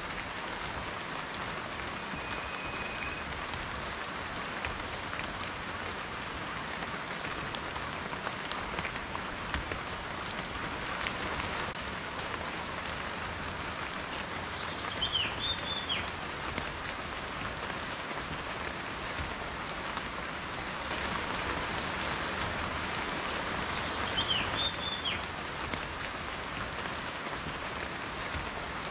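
Steady rain falling, with the patter of individual drops striking a surface. Two short high chirps come through the rain, one about halfway and one near the end.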